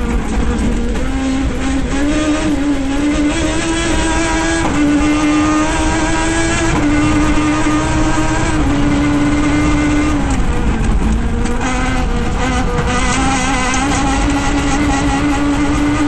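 Toyota Starlet rally car's four-cylinder engine running hard through a stage. Its pitch rises and falls in steps as it changes gear several times.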